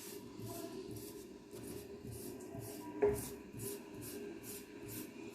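An eraser being rubbed back and forth on paper to clear leftover pencil lines from a drawing, in quick even strokes a little over two a second. There is one short knock about three seconds in.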